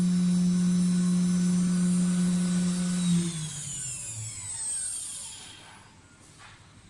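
Spindle of an Acctek AKM6090C mini ATC CNC router running at a steady speed with a hum and a high whine. About three seconds in it is switched off and spins down, its pitch falling away until it goes quiet.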